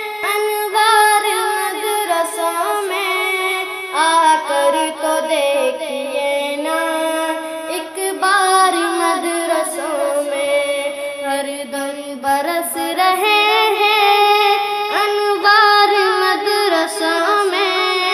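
A naat, an Urdu devotional song, sung by a high voice in long, drawn-out, ornamented phrases over a steady drone.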